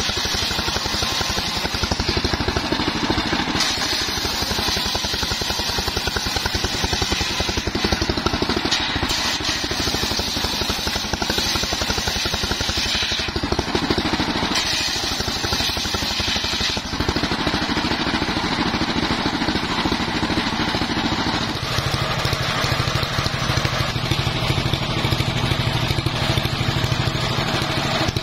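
Engine-driven homemade circular saw bench running under load, its large blade ripping lengthwise through old mahogany logs, with the motor's fast, even pulsing under the cutting noise. The sound of the cut shifts several times as pieces are fed and finished.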